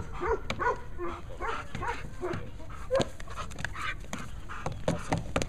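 German Shepherd barking repeatedly in quick, uneven bursts while lunging on its leash at a helper in a bite sleeve, as in protection training.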